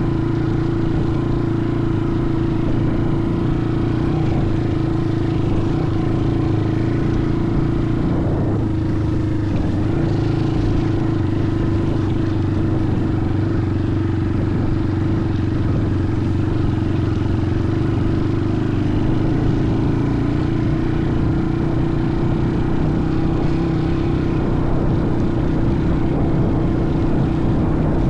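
A vehicle engine running at a steady speed throughout, its pitch not rising or falling.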